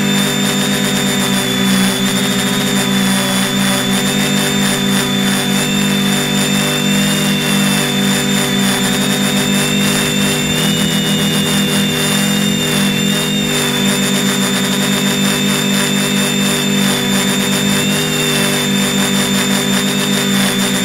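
A drone's electric motors and propellers, recorded by its own onboard camera: a steady hum and whine, with a higher tone that wavers slightly in pitch a few times as the craft holds its flight.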